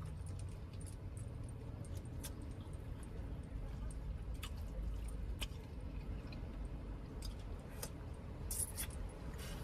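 Hands picking through a bowl of seafood boil and chewing: scattered soft clicks of shells and wet, squishy handling, over a steady low rumble.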